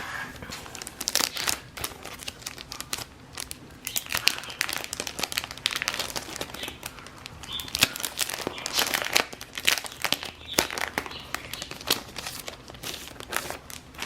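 Packaging crinkling and rustling as hands dig through a mail-order box and unwrap the items, in many quick irregular crackles with a few louder ones.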